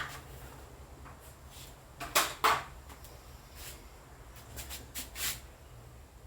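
Several sharp knocks and clicks of things being handled, the loudest two close together about two seconds in, over a faint steady low hum.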